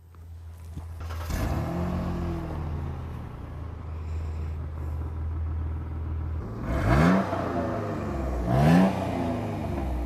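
A Jeep Wrangler JKU's V6 engine catches about a second in, settles to a steady idle, and is then revved twice in quick blips near the end. This is its first start after a SeaFoam top-engine-cleaner soak.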